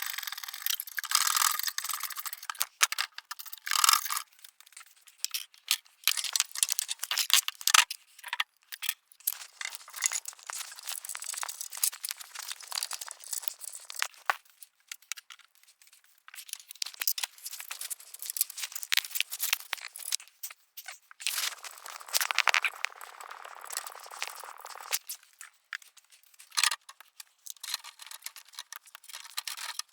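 Metal exhaust pipes, gaskets and bolts being handled and fitted by hand: irregular clinks, rattles and short scrapes, with one longer scrape about two-thirds of the way through.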